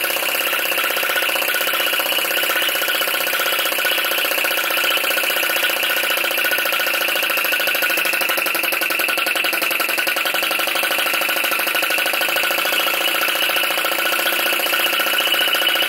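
PM Research Solar Engine #3 flame-licker (vacuum) engine running very fast, its valve and piston giving a rapid, steady clatter as it draws in the spirit burner's flame.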